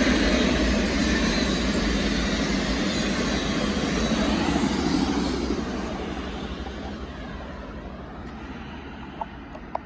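Freight train of autorack cars rolling past, a steady rumble of wheels on rail. It fades gradually after the last car goes by about four seconds in, as the train moves away.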